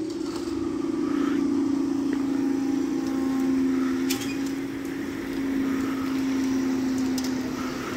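Level crossing barrier motors humming steadily as the booms rise after a train has passed, heard as two steady tones sounding together. A few faint clicks about four seconds in.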